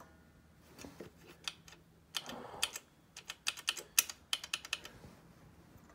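A small Harbor Freight air compressor struggling in the cold cuts out right at the start and stops running. After that come only scattered, irregular light clicks and ticks.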